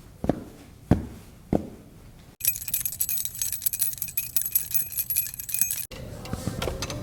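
Three dull thumps, evenly spaced about half a second apart. Then a bright metallic jangling, like a bunch of keys being shaken, goes on for about three and a half seconds and stops abruptly.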